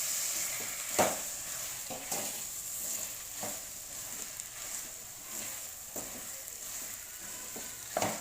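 Onions and ginger-garlic paste frying in oil in a pan: a steady sizzle, with a spoon stirring and knocking against the pan now and then, the sharpest knock about a second in.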